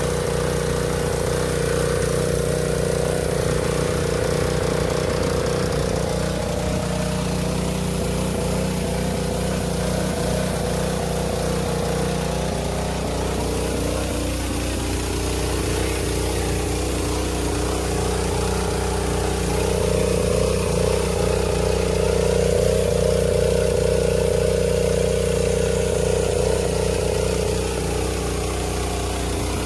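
Pressure washer engine running steadily under load while its water jets hiss against the ground under the undercarriage cleaner. The engine note shifts in pitch about halfway through and again a few seconds later.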